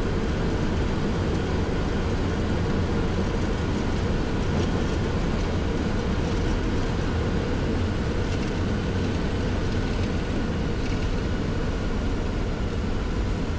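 Boeing 737-700 in its landing rollout, its CFM56 engines in reverse thrust and the wheels braking on the runway, heard inside the cockpit as a steady low rumble.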